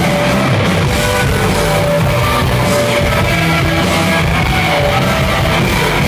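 Live rock band playing a guitar-driven song at full volume.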